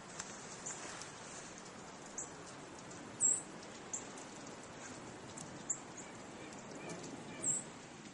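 Small birds giving short, high chirps, a handful of times, over a steady outdoor hiss.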